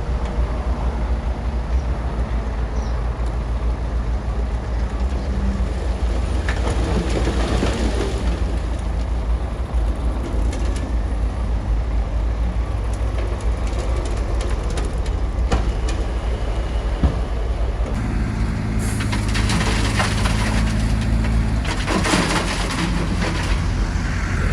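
Bulldozer's diesel engine running with a steady low rumble, with scattered clanks and rattles. The engine note becomes clearer and steadier about three quarters of the way through.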